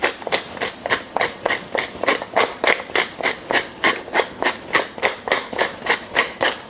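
Whole peppercorns being cracked, most likely in a hand pepper grinder, making a steady run of short crunching strokes about four a second.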